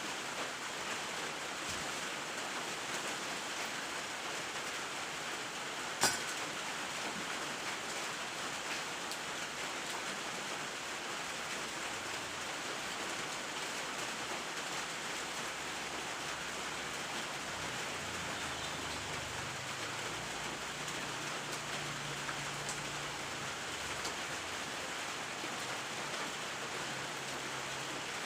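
Rain falling steadily, an even hiss, with one sharp click about six seconds in.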